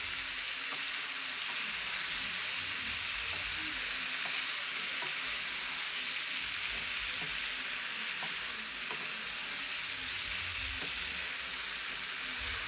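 Vegetables sizzling steadily in oil in a frying pan, stirred with a spatula that scrapes and clicks against the pan now and then.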